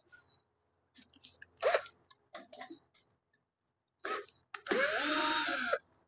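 Cordless power screwdriver running for about a second near the end, spinning up and back down as it drives out a screw from a microwave oven's control panel. Before it, a few light clicks and rattles of the screw and panel being handled.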